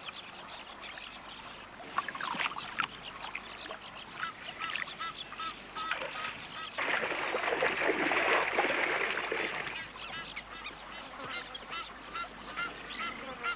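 Waterfowl, Egyptian goose and ducks, calling over and over in short honks, in alarm at a python in the water. About seven seconds in there is a burst of splashing lasting two or three seconds as a red-billed teal struggles in the python's coils.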